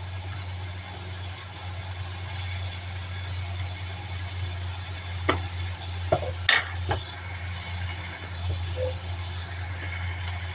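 Eggs and dragon chives sizzling in hot oil in a pan, with a steady low hum underneath and a few sharp knocks about halfway through.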